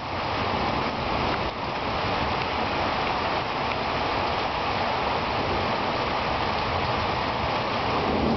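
Heavy rain falling steadily, a dense, even hiss of rain.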